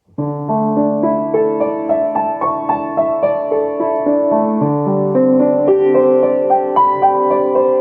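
Piano playing a flowing line of quick notes over held low bass notes, starting sharply just after the beginning.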